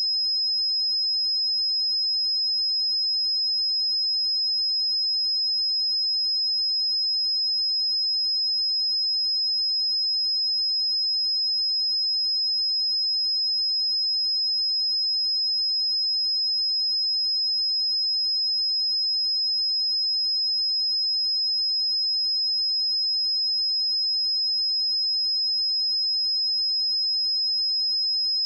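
A pure 5103 Hz sine-wave test tone, a single steady high-pitched note held at constant level.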